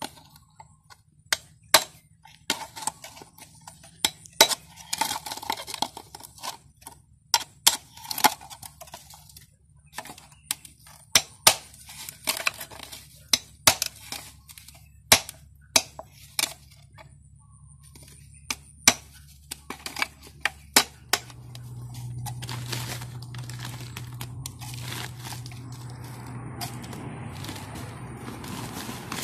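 Sharp, irregular knocks and cracks of a metal hand hoe striking plastic drink bottles, punching drainage holes so water will not pool in the seedling pots. About two-thirds of the way through the strikes give way to a steadier rustling as a hand digs into a plastic sack of soil, with a low hum under it.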